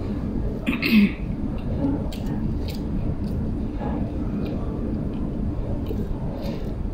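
A single short throat-clear about a second in, over a steady low background rumble.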